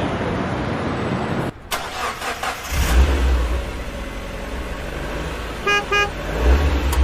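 City street traffic noise with a car's horn, as from a taxi, giving two short toots near the end.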